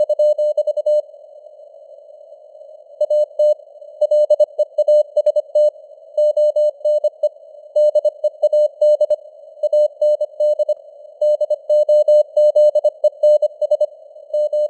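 Morse code at 25 words per minute: a single tone of about 600 Hz keyed in dots and dashes, with a pause of about two seconds near the start. It sits in a faint hiss of simulated radio noise.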